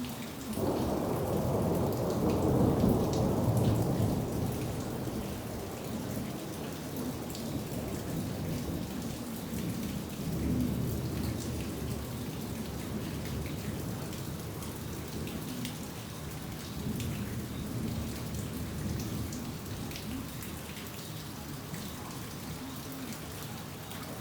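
Thunder rumbling over steady rain: a loud rumble breaks in under a second in, swells for a few seconds and slowly fades, with weaker rumbles about ten seconds in and again later. Rain falls throughout.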